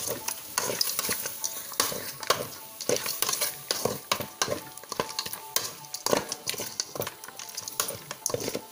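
A metal ladle stirring and scraping chicken pieces around a large metal pot as they fry, with irregular clinks and scrapes against the pot over a steady sizzle.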